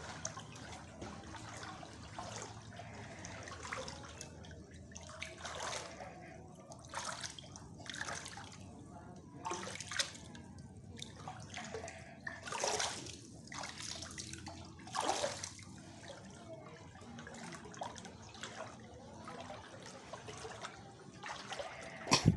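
Shallow floodwater splashing and trickling in irregular bursts as someone walks through it, with a sharper, louder burst near the end.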